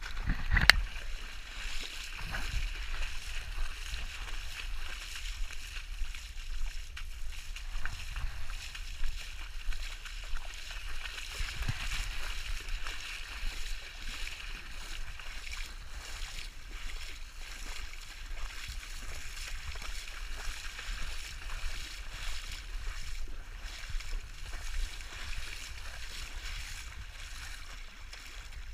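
Water sloshing and splashing as someone wades through a shallow stream, over a steady rush of moving water. A sharp knock, the loudest sound, comes about a second in.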